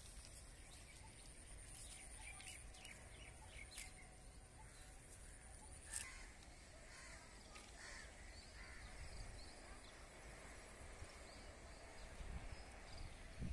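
Faint outdoor background: a low distant rumble with scattered bird calls, a thin high whine for the first six seconds, and one sharp click about six seconds in.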